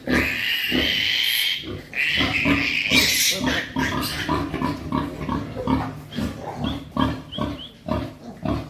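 Piglet squealing: two long, loud, high-pitched squeals, then rapid short grunts at about three a second. This is the distress squeal of piglets being caught and handled for iron injections.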